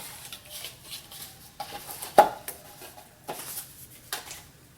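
Unboxing handling noises: light rustles and small taps as papers and packaging are moved, with one sharper knock a little over two seconds in.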